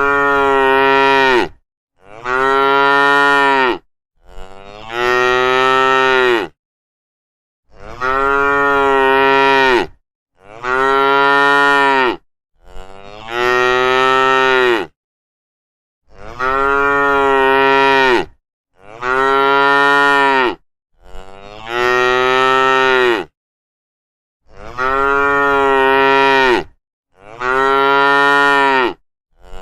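Cows mooing, one long steady moo after another, about one every two and a half seconds, with complete silence between the calls.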